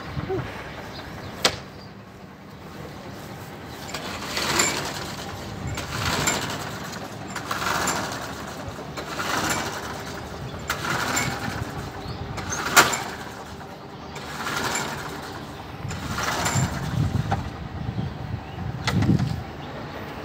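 Hayter petrol lawnmower being pull-started over and over, a pull about every one and a half to two seconds, the engine cranking but not catching. One sharp knock comes near the middle.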